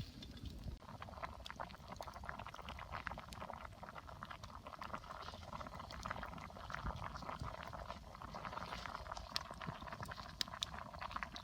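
Food cooking over a campfire, sizzling and bubbling with a dense, irregular crackle. A sharp knock comes at the very end.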